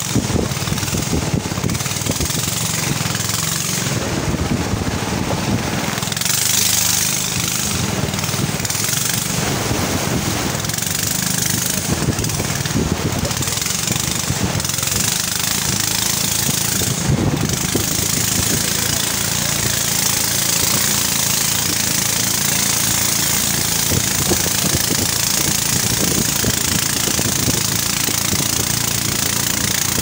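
Small boat engine running steadily at speed, pushing a wooden river boat upstream, with a constant hiss of rushing water and wind over it.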